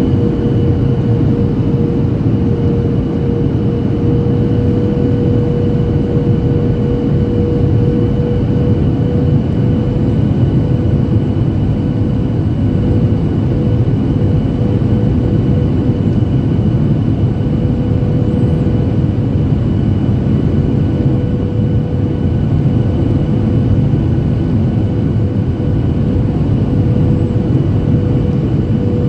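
Boeing 737-800 cabin noise: the steady rumble of the CFM56-7B turbofan engines and passing air, heard from a window seat near the rear, with a constant hum and a fainter high whine over it.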